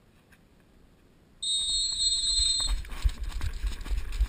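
Game-start signal: after near silence, a single loud, steady high-pitched tone sounds for about a second and cuts off. Right after it come thudding running footsteps on dirt and gear rattling as the players break from cover.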